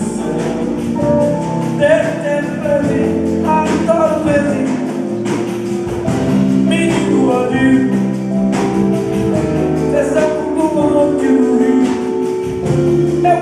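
Live Brazilian jazz band playing, with nylon-string acoustic guitar, saxophone, electric bass, keyboard and cajón, and a melody line that may be sung.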